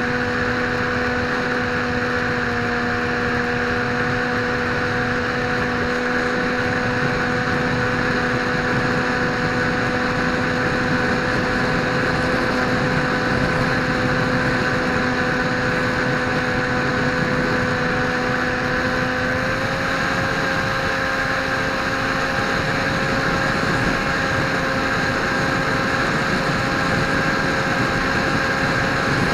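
Electric motor and propeller of a Dynam Hawk Sky RC plane running at steady throttle in flight: an even whine that steps up slightly in pitch about twenty seconds in, over a rushing noise.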